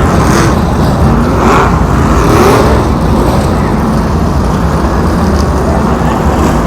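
A field of modified race cars running on a short track, their engines loud and steady, with slight swells as cars go by.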